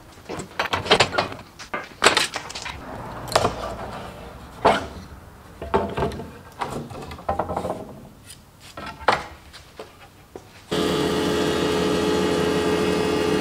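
Thin wooden lamination strips knocking and clicking against each other and the workbench as they are handled and laid up, in irregular knocks. About ten seconds in, a Macema thickness planer's steady running hum starts abruptly.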